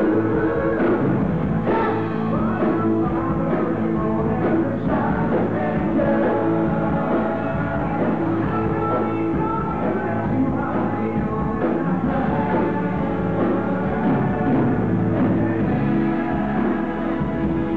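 Live rock band playing: electric guitars, electric bass and a drum kit, with a vocalist singing.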